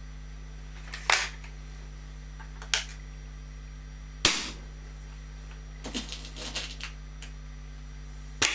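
SMK XS20 .177 air rifle being worked and fired: sharp mechanical clacks as the action is cocked and loaded, then a single sharp shot about four seconds in, the loudest sound, followed by a run of small clicks and another clack as it is readied again.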